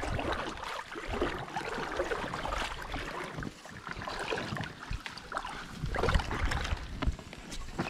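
Paddling a packraft on a small river: water noise with irregular paddle splashes and knocks.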